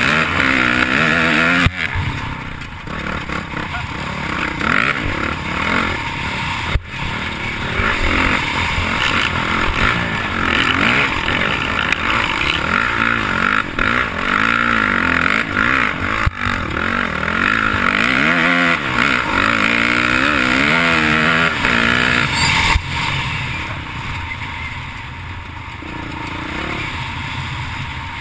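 Dirt bike engine revving up and down under load on a steep grassy climb, with wind rushing over the microphone. The engine eases off near the end.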